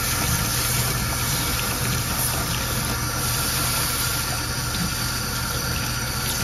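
Tap water pouring over a hot, freshly welded steel round-bar hand in a utility sink, quenching it as steam rises. A steady low machine hum runs underneath.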